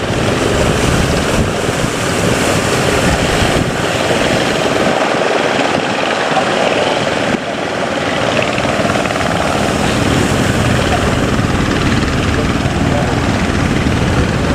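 A boat's engine running steadily under loud rushing wind and water noise, with a brief dip in level about seven seconds in.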